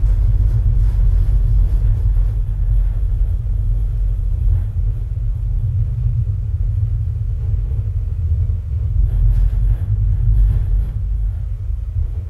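SVS SB-3000 subwoofer playing a movie soundtrack's deep, loud, chest-pounding bass, turned up to just below the point where it would distort; almost nothing sounds above the low bass.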